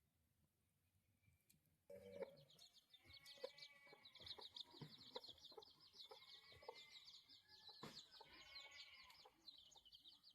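Chickens clucking and chirping, faint, starting about two seconds in after near silence.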